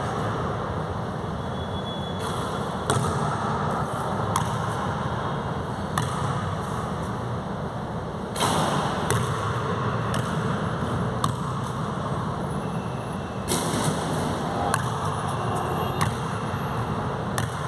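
A basketball bouncing on an indoor court floor and striking the rim, heard as scattered sharp thuds over a steady background noise. The loudest strike comes a little past the middle.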